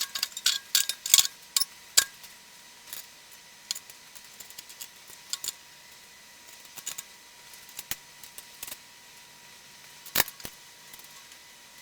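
Metal tools and parts clicking and clinking as they are handled, a quick run of clicks in the first two seconds, then scattered ones, with a sharper clink about ten seconds in. A faint steady high tone sits underneath.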